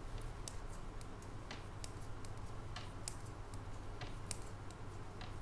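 Metal knitting needles clicking against each other in irregular light clicks, a few a second, as a row of purl stitches is worked in yarn.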